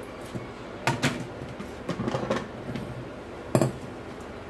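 Plates and a small steel bowl being set down and shifted on a tabletop: a few separate knocks and clinks, the sharpest about three and a half seconds in.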